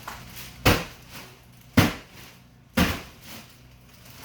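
A bag of ice slammed down three times, about a second apart, to break up cubes that have frozen together into a hard lump.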